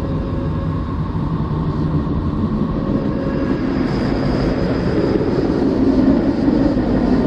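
Space-probe electromagnetic recording converted to audio and presented as the sound of Neptune: a steady, deep rumbling drone that swells slightly louder in the second half.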